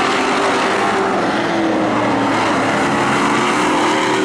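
A field of stock cars racing on an oval track, several engines running hard at once. One engine note drops in pitch a little after two seconds in as a car goes by.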